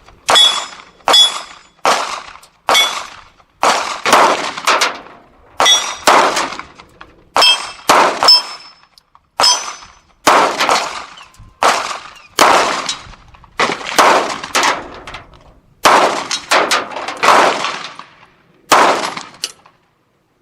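9mm semi-automatic pistol fired in a steady string of about two dozen shots, roughly one every half to one second, with a faint high metallic 'tink' now and then from the distant steel gong being hit.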